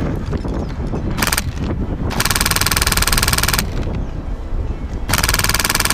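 Airsoft gun firing on full auto in three bursts of rapid, evenly spaced shots: a short burst about a second in, a longer one of about a second and a half, and a second-long burst near the end.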